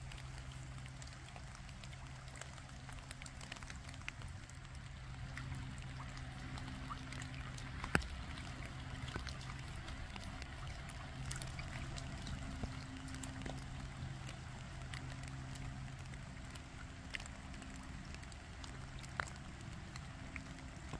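Light rain falling, scattered drops ticking on water and leaves over a soft steady hiss, with a faint low hum underneath. A single sharp tap about eight seconds in.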